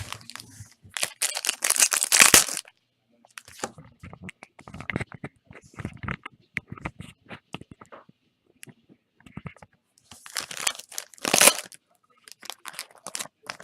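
Trading-card packaging being torn open and crinkled by hand, with cards rustling and clicking as they are handled. There are two loud tearing bursts, one about a second in and one around ten seconds in.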